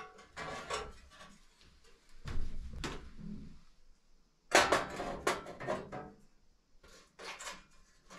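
Clattering, knocking and scraping of sauna-stove parts being handled and fitted by hand, with a longer, louder scrape about four and a half seconds in.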